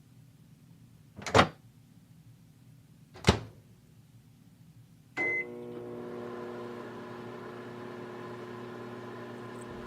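Microwave oven being used to heat a water bottle: two sharp knocks, then a short beep, and the oven starts running with a steady hum.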